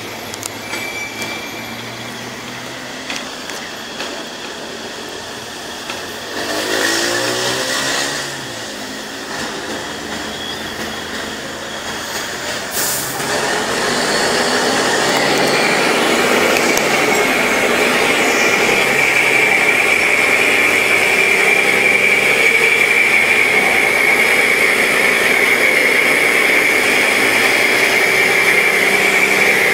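Mercedes-Benz O-500 MA articulated bus running with a rough rumble, which the owner suspects comes from a holed exhaust. About halfway through the sound grows louder and holds steady, with a high whine over the engine.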